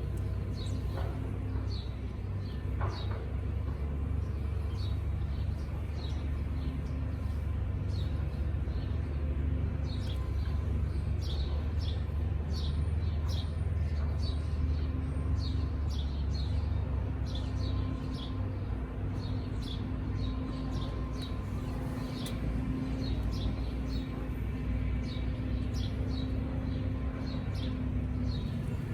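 Small birds chirping over and over in short calls, over the steady hum of honeybees around an opened hive and a low rumble. The hum grows stronger in the second half.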